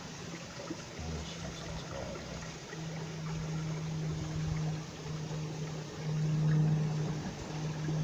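Mountain stream water running over rocks, a steady rush. A low hum comes and goes over it from about three seconds in, loudest a little past the middle.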